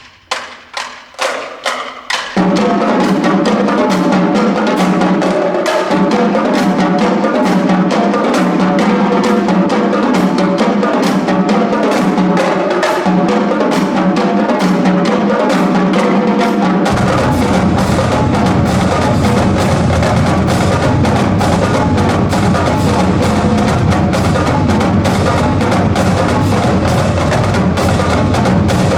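Marching band drumline playing a street cadence in a gymnasium. A few sharp separate clicks come first, then snare and tenor drumming starts about two seconds in. Deeper bass drum hits join about seventeen seconds in.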